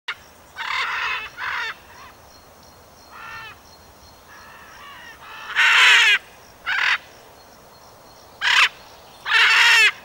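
A string of about eight harsh, raspy bird squawks, short and spaced apart, with the loudest about halfway through and at the end.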